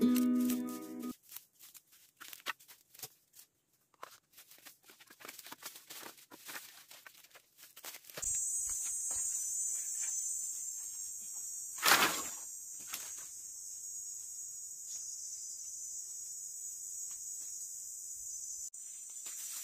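Dry twigs and leaf litter crackling and snapping in scattered small clicks, then a steady high drone of insects. About twelve seconds in, one loud clatter as a load of cut firewood sticks is dropped onto the ground.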